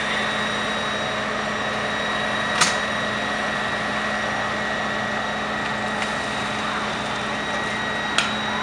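Fire engine running steadily at the scene, a constant hum with a high whine, with its pump feeding the hoses. Two short sharp clicks sound, one about two and a half seconds in and one near the end.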